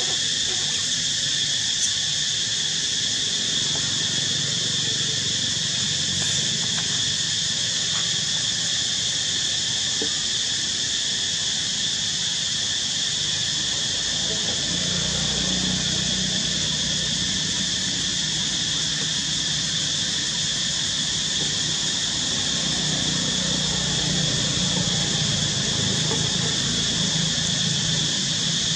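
A steady, high-pitched insect chorus drones without a break, with a low rumble swelling underneath a couple of times.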